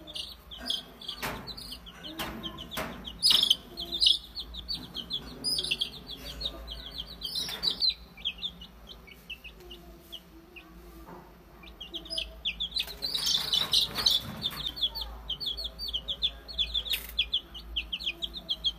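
Baby chicks peeping: a rapid, continuous string of short, high-pitched cheeps, several a second, growing louder and more urgent in spells. A few short knocks sound among them.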